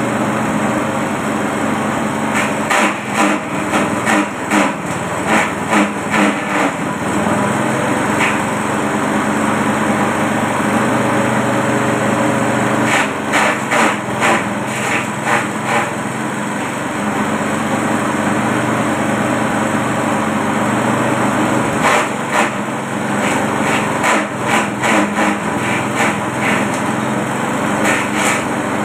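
Small petrol engine running a forage chopper at a steady speed. In three spells, leafy branches fed into the blades give a rapid run of chopping knocks.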